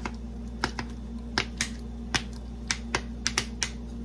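Irregular sharp pops and crackles, about ten in four seconds, of hot fat spattering in pans on the stove, over a steady low hum.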